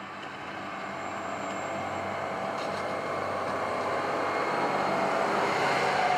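Massey Ferguson 8670 tractor pulling a Krone ZX450GD loader wagon, driving up and passing close by. Its engine hum grows steadily louder as it nears, with tyres rolling over the mown grass.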